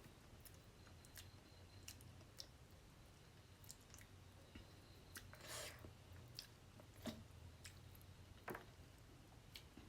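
Faint chewing and mouth sounds of a person eating fish curry close to the microphone: scattered soft clicks and smacks, with a brief louder wet, noisy sound about five and a half seconds in.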